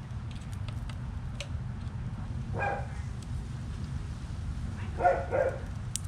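A dog barking: one short bark about halfway through, then two close together near the end, over a steady low rumble.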